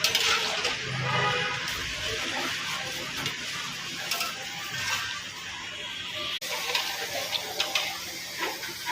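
Hot oil sizzling steadily as batuk, Nepali black-lentil fritters, deep-fry, with small scattered crackles and a sharp momentary break about six seconds in.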